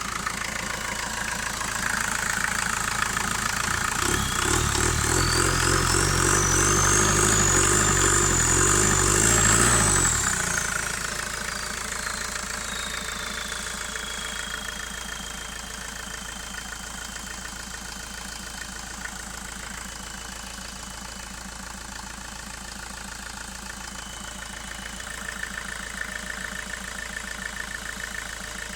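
VW Passat B3 1.9-litre turbodiesel revved briefly and let fall back to idle. The original turbocharger's whistle rises steeply in pitch as the revs climb, peaks about ten seconds in, then winds down slowly to a lower whistle that carries on over the idling engine.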